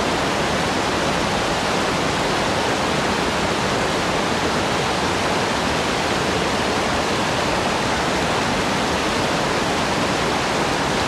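Shallow, rocky river rushing over boulders through a white-water riffle: a steady, unbroken rush of water.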